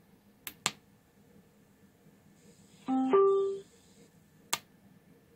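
A toggle switch clicks twice, then about three seconds in the Bluetooth amplifier board plays its short two-note power-on chime through the small speakers, a low note stepping up to a higher one. Another sharp switch click comes near the end.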